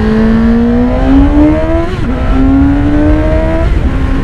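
Suzuki GSX-S750's inline four-cylinder engine through its stock exhaust accelerating hard: the engine note climbs, dips briefly for an upshift about two seconds in, climbs again, then falls and settles to a steady lower note near the end.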